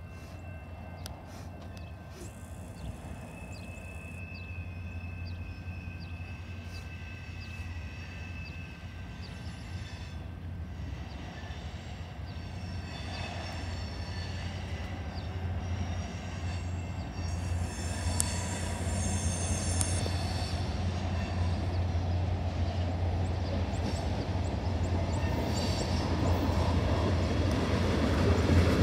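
Freight train of tank cars rolling toward the listener, its rumble growing steadily louder until the cars pass close by near the end, with faint high-pitched wheel squeals along the way.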